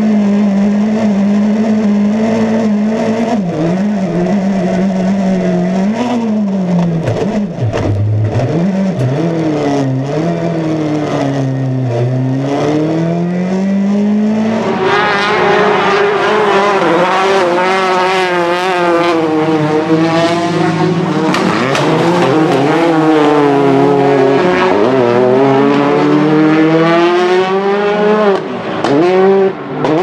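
Peugeot 208 T16 R5 rally car's 1.6-litre turbocharged four-cylinder engine, first heard inside the cabin, its pitch falling and climbing again as the car slows and accelerates. About halfway through it is heard from trackside, revving hard with a rapidly wavering pitch while the tyres squeal through a powerslide.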